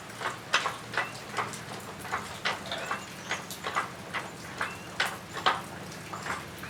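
Raindrops and drips landing on a metal roof: irregular sharp ticks and pings, about two a second at uneven spacing, over a low steady hum.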